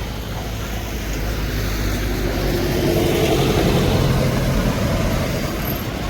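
A vehicle engine running steadily, swelling louder around the middle, over outdoor background noise.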